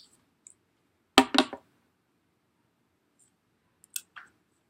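Sharp clicks and taps from handling an iPhone 5c while ejecting its SIM card tray. A loud cluster of several clicks comes about a second in, and a few lighter ticks near the end.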